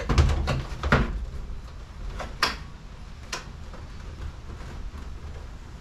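A few sharp plastic knocks and clicks as a Makita cordless-tool battery charger is handled and fitted against a plywood wall, spread over the first three seconds or so, then only a low steady hum.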